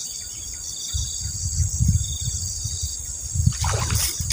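Insects buzzing steadily over a low rumble, with a splash on the water surface near the end where a surface frog lure is being fished.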